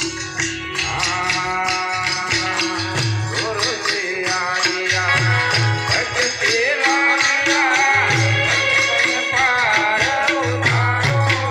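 Folk music: a wavering melody over steady jingling, rattling percussion and a low drum beat.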